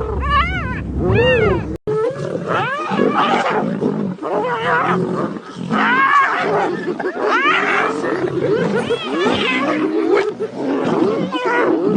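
Big cats yowling and snarling in loud, overlapping rising-and-falling cries, with a brief break about two seconds in.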